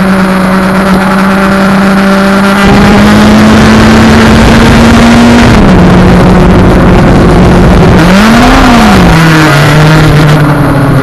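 Yamaha FZ1's inline-four engine pulling at a steady speed under heavy wind rush on the microphone. The engine note briefly rises and falls about eight and a half seconds in, then settles lower near the end.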